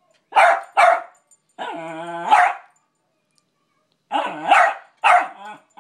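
West Highland White Terrier barking in frustration at a squeaky toy it can't reach: two sharp barks, then a drawn-out, lower call that ends in a bark. After a short pause, a quick run of about four more barks.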